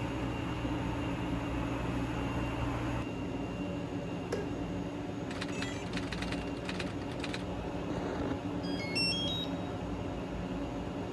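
POS terminal being switched on: several clicks, then a quick rising run of short electronic beeps, over a steady low hum.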